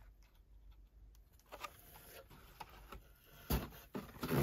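Handling noise from carded toy cars: plastic blister packs clicking and rustling as they are handled, and a hand rummaging in a cardboard box. A few louder knocks and rustles come near the end.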